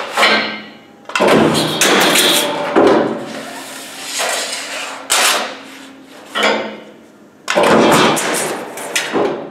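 Sheet steel being slid and set on a mechanical guillotine shear's table: irregular metallic clanks, rattles and scraping, loudest in a cluster near the end.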